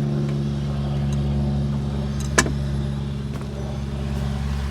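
Steady low mechanical hum, even and unchanging, with one sharp click about halfway through.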